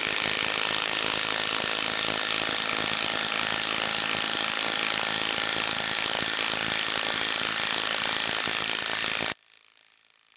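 Milwaukee M12 Stubby 1/2-inch cordless impact wrench hammering steadily as it drives a 4-inch by 1/2-inch lag screw into a wooden stump with no pilot hole, on speed setting 3. It stops suddenly about nine seconds in, when the lag is nearly seated.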